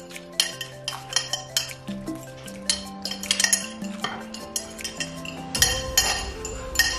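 Metal forks clinking and scraping against ceramic plates in quick, irregular clicks as two people eat noodles fast, over background music with held notes and a bass line that comes in about two-thirds of the way through.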